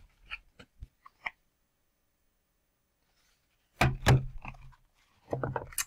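Picture book being handled close to the microphone: a few light taps and clicks, then two clusters of thumps and rustling, about four and about five and a half seconds in.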